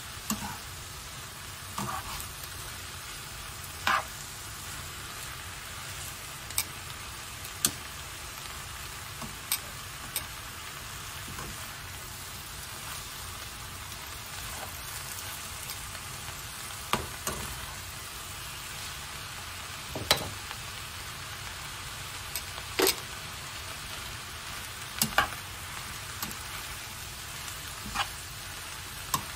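Garlic chives, carrot and onion sizzling steadily in a nonstick frying pan as they are stir-fried, with scattered sharp clicks and knocks of the tongs against the pan.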